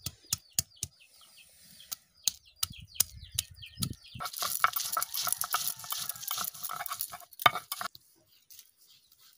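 A hand-held stone knocking on ginger and garlic laid on a flat stone grinding slab, in sharp taps about three a second. About four seconds in this turns into a few seconds of harsher stone-on-stone rasping and knocking as the paste is ground, which stops shortly before the end.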